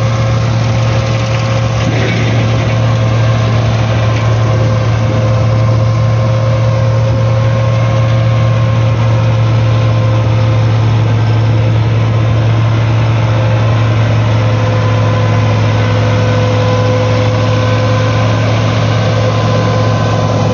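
Massey Ferguson tractor's diesel engine running steadily under load while driving a straw chopper that cuts wheat stubble into chaff and blows it into a trailer. The sound is a steady low drone with a constant whine over it.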